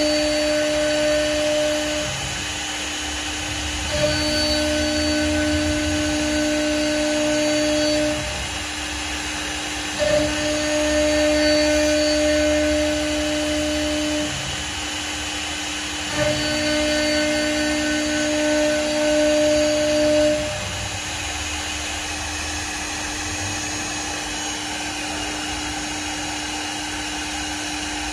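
CNC wood lathe machining a spinning wooden column with its high-speed planer cutterhead: a steady pitched machine whine with wood-cutting noise. It gets louder in passes of about four seconds, each starting with a sharp knock and repeating about every six seconds. From about two-thirds of the way through it runs quieter and steadier.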